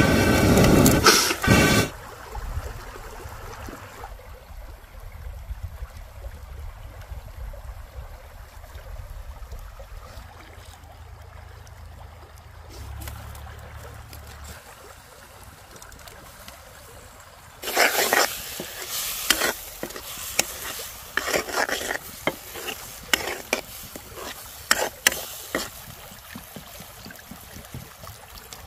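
Curry frying in an iron kadai over a wood fire, with a ladle stirring and scraping the pan in short uneven strokes. The strokes come in the first couple of seconds and again through the last third. In between, a faint steady stream runs.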